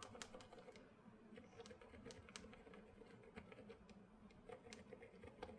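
Faint, irregular key presses on a KBD67 Lite mechanical keyboard: single soft clicks of the switches, sometimes two or three in quick succession, as keys are tapped at random.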